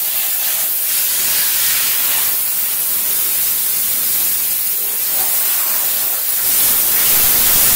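Steam jetting from the gun nozzle of a VaporChief 125 steam cleaner, running at about 125 PSI, as a steady high hiss with small swells in strength.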